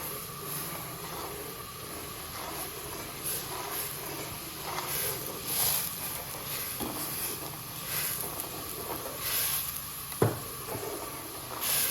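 Hot milk hissing in a kadhai as vinegar curdles it into chhena, with a spoon scraping through it now and then and one sharp knock of the spoon against the pan near the end.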